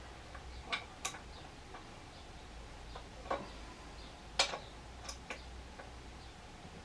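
An adjustable spanner being fitted and refitted onto a motorcycle fork's top cap nut, giving a few irregular sharp metallic clicks and taps.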